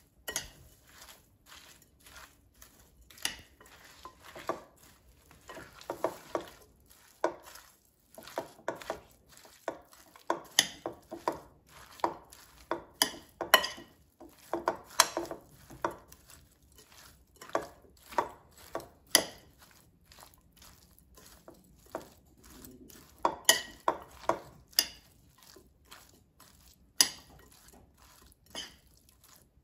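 Metal fork stirring and tossing a dressed salad in a glass mixing bowl: irregular clinks and scrapes of the fork against the glass, several a second at times, with quieter gaps between bouts of mixing.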